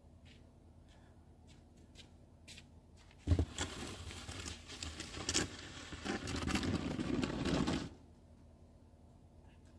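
Snow shovel blade scraping along a paved driveway as it pushes snow. It starts with a knock about a third of the way in, runs for about four and a half seconds, then stops; faint ticks come before it.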